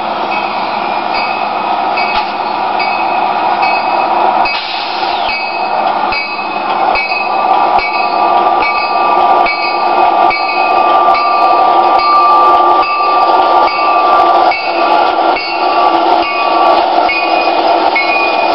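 Norfolk Southern diesel locomotives passing close by with a steady, loud engine and rail noise. A bell rings with short regular strokes throughout, and a steady high tone holds for several seconds midway.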